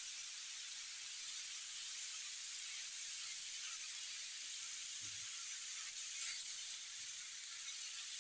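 Grated vegetables and diced green pepper sizzling in oil in a frying pan as they are stirred with a silicone spatula: a steady hiss.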